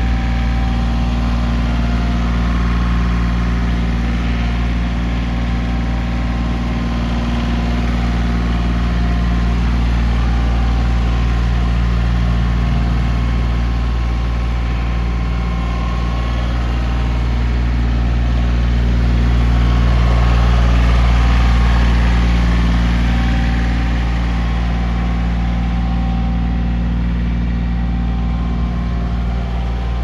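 Yanmar YT235 compact tractor's three-cylinder diesel engine running steadily at low speed as the tractor drives slowly around. It grows somewhat louder about two-thirds of the way through, then eases off.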